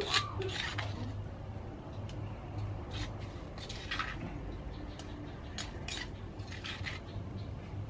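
Spoon scraping and clinking against the inside of a stone mortar while scooping out pounded crab paste, in irregular short scrapes and taps.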